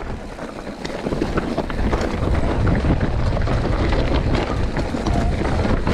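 Mountain bike descending a rough trail at speed: wind buffeting the camera microphone over a constant clatter of the bike rattling over rocks and roots, growing louder about two seconds in.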